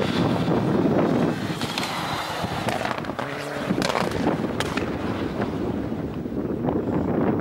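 Rally car driven hard on a snowy stage, its engine noise mixed with heavy wind rumble on the microphone. A few sharp clicks come about halfway through.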